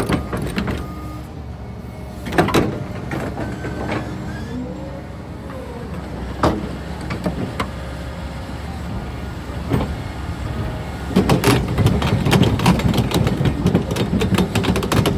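Volvo ECR145 excavator working: its diesel engine runs steadily under short gliding hydraulic whines, with single metallic clanks about every three to four seconds and a busier run of clanking and knocking over the last few seconds.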